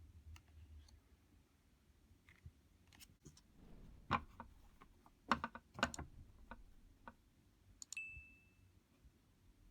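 Tarot cards and their cardboard box being handled: scattered light taps and clicks, three of them sharper in the middle, then a click with a short high ring near the end.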